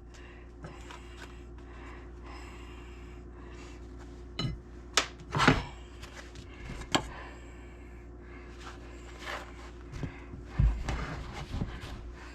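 Handling of a baking pan of freshly baked pull-apart garlic bread: a few scattered knocks and short rubbing sounds, clustered about four to seven seconds in and again near the end, over a faint steady hum.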